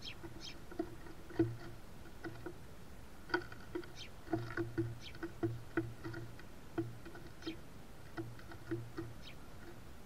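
Small birds pecking at sunflower seeds on a wooden platform feeder, heard as irregular taps and knocks on the wood, about two a second. They come thickest about halfway through.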